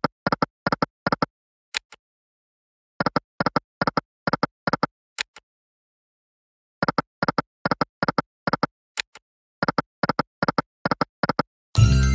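Online video slot game sound effects: runs of short electronic ticks, about three a second, as the reels spin and stop, each run preceded by a sharp click and followed by a pause. Near the end, a louder, longer win jingle sounds as a winning line pays.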